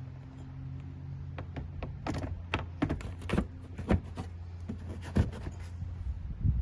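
Irregular sharp clicks and knocks, a dozen or so, of parts and tools being handled, over a steady low hum that cuts off suddenly at the end.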